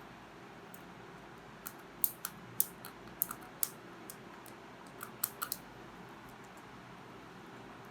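Light, sharp clicks and taps from small parts and tools being handled during wiring work. There are about a dozen in two bunches, about two seconds in and again about five seconds in.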